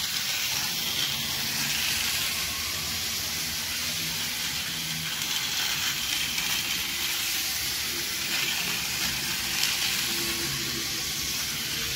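Rail King battery-powered toy train locomotive running fast around its plastic track on 7.4 volts: a steady hissing rattle of the small motor, gears and wheels on the rails, with a faint hum under it.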